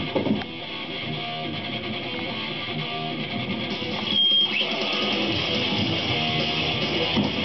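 Background music with strummed guitar, growing fuller about four seconds in.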